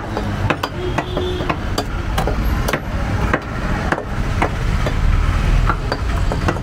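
Butcher's cleaver chopping goat meat and bone on a wooden log chopping block: quick repeated strikes, about two or three a second, over a low steady rumble.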